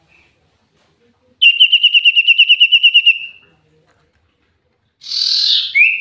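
Common iora (cipoh) singing: a fast, even trill of about ten notes a second that fades out, then about three seconds later a short harsh rasp running straight into a rising whistled note.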